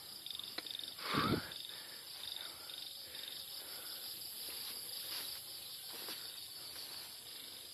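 Insects chirping in the rice paddy: a steady, high, evenly pulsed trill, with a brief louder rustle or splash about a second in.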